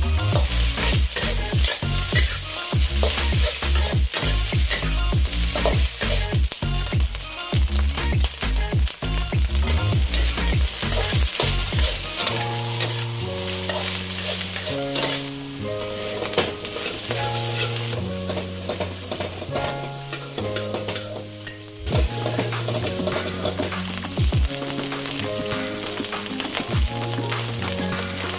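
Fried rice stir-frying in a hot pan: a steady sizzle with the scrape and clatter of a spatula, the strokes busiest in the first half.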